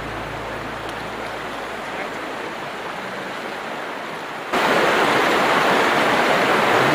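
Flowing river water, a steady rushing hiss that jumps abruptly louder about four and a half seconds in.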